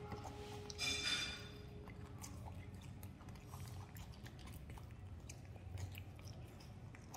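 Young macaques chewing and biting into raw bell pepper strips: faint small crunches and mouth clicks. A brief high-pitched squeak about a second in.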